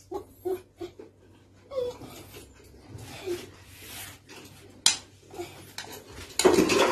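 Knife and fork clinking and scraping on a plate as fried chicken is cut, with a sharp clink about five seconds in. Several short high cries come in the first second, and a loud burst of noise comes near the end.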